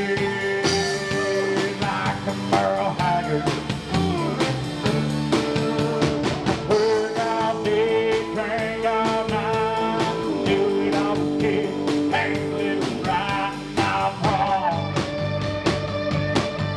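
Live country-rock band playing an instrumental passage: a lead electric guitar plays bending lines over bass and a steady drum beat.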